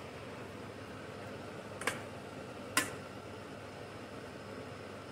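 A plastic spoon knocks twice against a stainless steel saucepan of cooked rice and squash, two short clicks about a second apart, over a steady faint background hiss.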